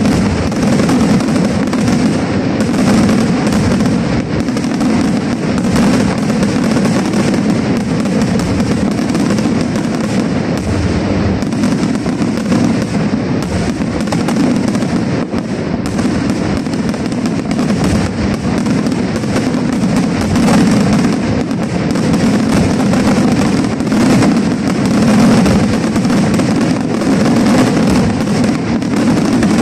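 Aerial fireworks display going off as a dense, unbroken barrage of shell bursts and crackling reports.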